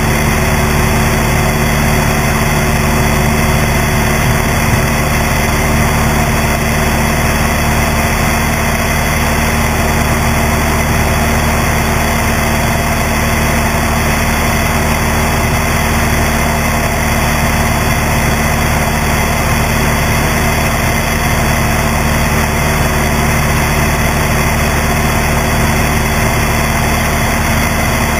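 Cessna 172's piston engine and propeller droning steadily in flight, with wind rushing over the strut-mounted camera.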